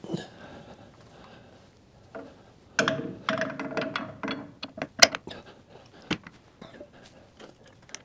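Metal clanks, scrapes and sharp clicks as a hydraulic top link cylinder is handled and fitted into a tractor's three-point hitch. The clatter is busiest a few seconds in, with sharp clicks after.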